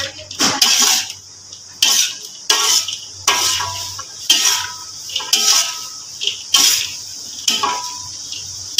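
Metal spatula scraping and clanking against a large metal wok as a stir-fry is tossed, about one stroke a second, some strokes leaving a short metallic ring. A low steady hum runs underneath.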